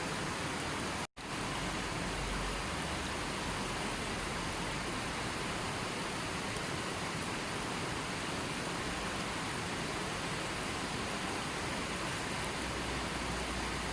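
Steady, even rushing of water noise with no rhythm or change, cut to silence for a split second about a second in.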